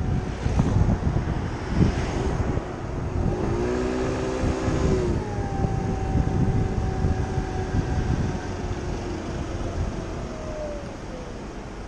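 Wind buffeting the microphone over the running engine and drive of a Kymco Agility City 50cc scooter, a small four-stroke with belt-drive automatic transmission. Its hum holds steady, then drops in pitch and quietens near the end as the scooter slows.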